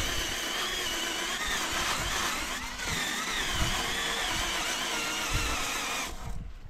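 A power tool's motor running steadily with a high whine that wavers in pitch. It fades and stops near the end.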